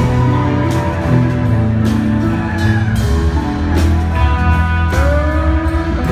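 Live band music: violins and keyboard over guitar and a strong bass line, with a steady beat about once a second and a few rising sliding notes.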